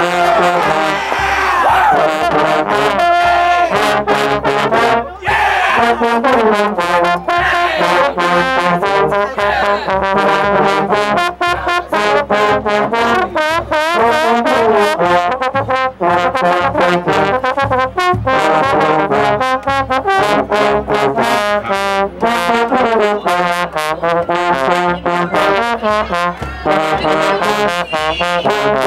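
A high school trombone section playing loudly together, a fast line of quick-changing notes with slide glissandi near the start and a brief break about five seconds in.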